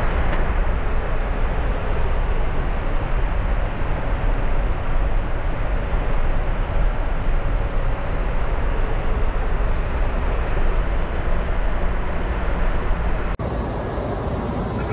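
Steady rushing airflow and engine noise on the flight deck of an Airbus A350 in flight. About 13 seconds in it cuts off abruptly and resumes a little quieter as passenger-cabin noise.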